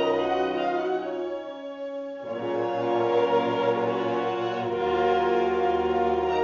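Wind ensemble playing sustained chords live. The sound thins and dips about a second in, a fuller chord swells in just after two seconds, and a deep bass note joins near five seconds.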